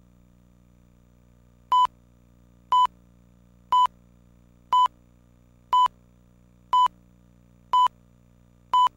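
Countdown leader beeps: eight short, identical high beeps, one each second starting about two seconds in, marking each number of the count. A faint steady low hum runs underneath.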